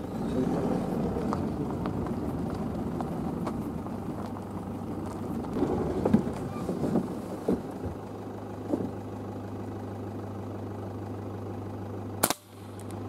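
Pickup truck engine running steadily as it rolls slowly along a dirt track, with a few knocks and rattles about halfway through. Near the end there is one sharp crack, followed by a brief dip in level.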